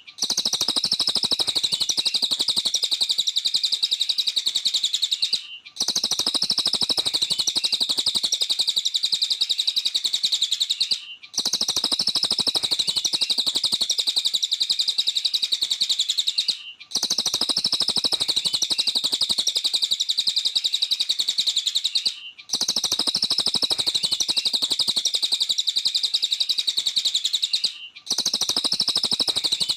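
Cililin songbird singing non-stop, a dense, rapid chatter of high chirps and trills that breaks off briefly about every five and a half seconds.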